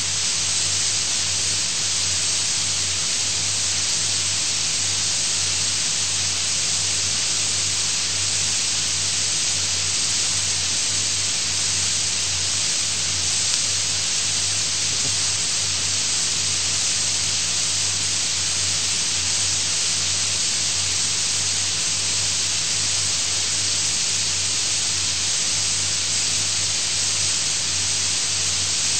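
Steady hiss with a low hum under it, unchanging throughout: the background noise of an old speech recording with no one talking.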